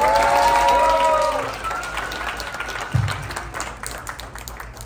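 Audience applauding, with several voices calling out long, sustained cheers over the clapping in the first second or so. The clapping fades a little, and there is a low thump about three seconds in.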